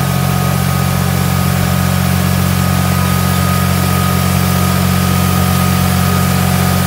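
Red Massey Ferguson tractor's diesel engine running steadily at low revs, with a constant even hiss over it.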